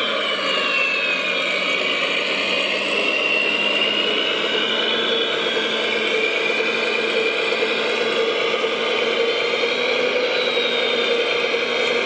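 Drive motor and gearbox of a radio-controlled Volvo A45G articulated dump truck model whining steadily as it drives, the high whine dipping about a second in and climbing back as its speed changes.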